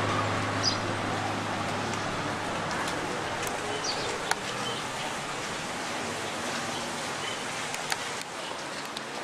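Steady background hiss with a few faint high chirps and a couple of soft clicks. A low held note of background music fades out in the first two seconds.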